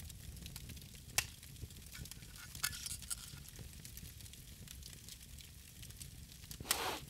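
Fire crackling: sparse sharp pops and clicks over a low steady rumble, with a short louder rush of noise near the end.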